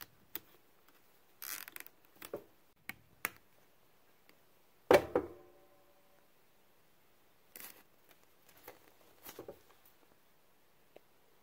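Scattered handling noises of hands fitting the wiring and hoses on a chiller's water pump: short clicks, rustles and small taps, with one sharp knock about five seconds in that rings briefly.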